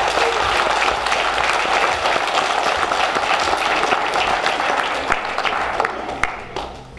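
An audience of schoolchildren applauding: many hands clapping together, thinning out and dying away near the end.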